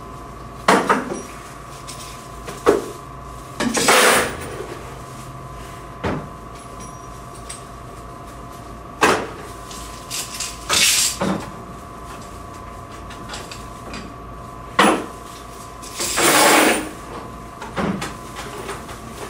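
Coins being emptied out of vending machine coin tubes into a container: scattered sharp clicks and knocks, and three longer clattering pours, the longest near the end, over a steady hum.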